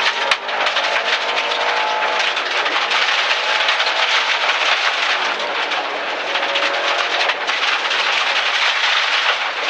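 Rally car driven hard on a gravel stage, heard from inside the stripped cabin: engine running under load, its pitch rising and falling, over a dense clatter of gravel and stones hitting the underside and tyre roar.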